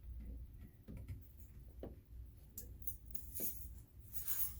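Scattered light clicks and brief rustles of hands handling equipment, over a low steady hum.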